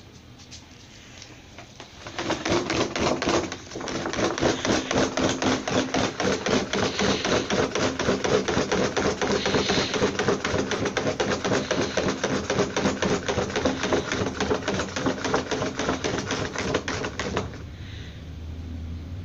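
A dog scratching with a hind leg at its plastic cone collar, in a fast rattling run of taps that starts about two seconds in, breaks off briefly, then goes on until near the end.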